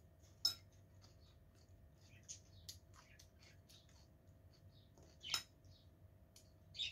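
Faint eating sounds: scattered small clicks of a metal fork against a ceramic salad bowl and soft chewing, the two loudest clicks about half a second in and about five seconds in.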